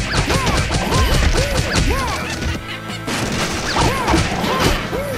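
A lorry smashing into a crash barrier: repeated crashing and crunching impacts with debris, over music. Short squeaky tones that rise and fall recur through it.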